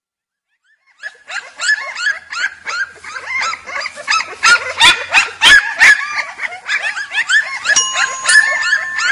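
A litter of newborn puppies crying: many short, high-pitched cries that overlap, starting about a second in and loudest in the middle. A few held musical notes come in near the end.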